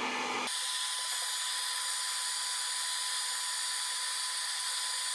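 Hot-air blower running steadily, heating the phone's glass to soften the adhesive: a constant rushing hiss with a thin steady whine.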